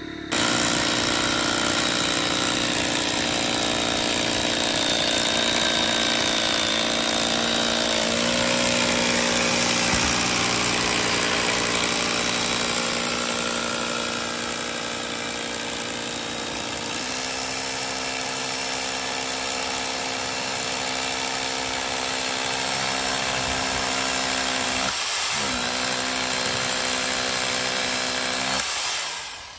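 Corded hammer drill boring into the top of a concrete block wall, the motor running under load with its pitch shifting a few times, dipping briefly a few seconds before the end and then stopping.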